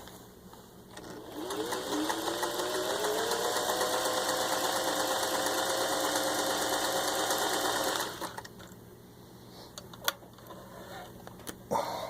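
Singer 500A Rocketeer sewing machine stitching a zigzag: the motor winds up quickly, runs at a steady speed for about six and a half seconds, then stops. A few sharp clicks follow near the end.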